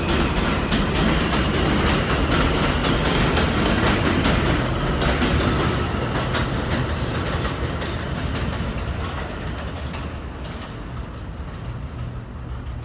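New York City subway M train pulling away, a steady rumble with its wheels clicking over the rail joints. The sound fades over the second half as the train draws off.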